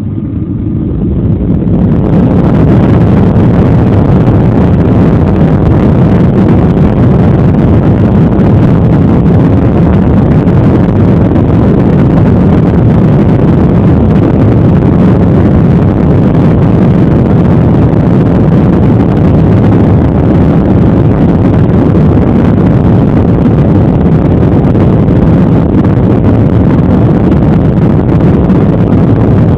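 Jet airliner engines at takeoff power, heard from inside the passenger cabin: the noise swells over the first couple of seconds, then holds as a loud, steady low rushing.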